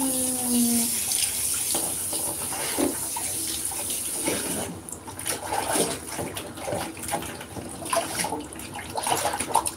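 Handheld shower sprayer running into a tub of soapy water, a steady hiss that stops about five seconds in; after that, hands sloshing and splashing water over a cat standing in the tub.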